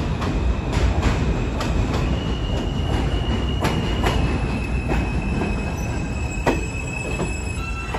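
New York City subway train running into an elevated station on steel rails: a steady rumble with a high, held wheel squeal, and wheels clicking over rail joints, the clicks coming further apart as the train slows.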